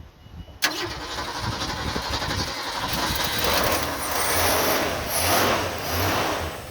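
Carbureted Mercury Zephyr engine started after its carburettor is primed with gasoline, because the choke doesn't work and the accelerator pump is weak. It catches suddenly about half a second in and runs loudly, getting louder toward the middle, then cuts off near the end.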